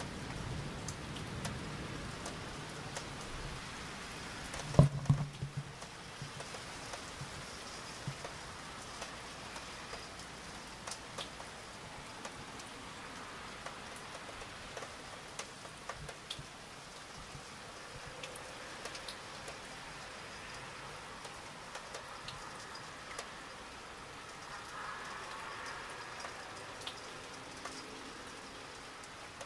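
Steady rain with scattered drops ticking on a nearby surface. The tail of a thunder rumble dies away at the start, and a single sharp knock stands out about five seconds in.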